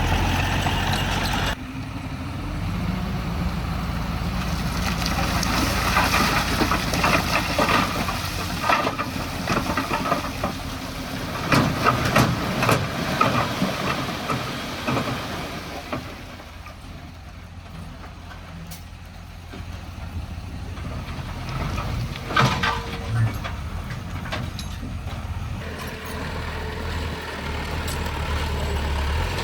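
Heavy earthmoving machinery's diesel engines running steadily, with clusters of sharp metallic clanks about a third of the way in and again later. The engines ease off for a few seconds in the middle.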